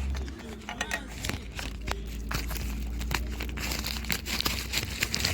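Plastic photocard wrapping crinkling as it is handled, with many short sharp crackles.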